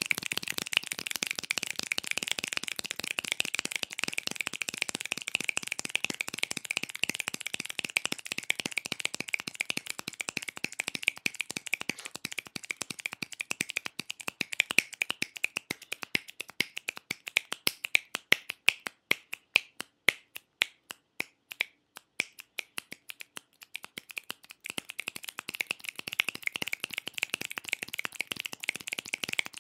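Fingers snapping very fast in a dense, continuous stream of sharp snaps. From about twelve seconds in the snaps come further apart and louder one by one, then they pick up speed again near the end.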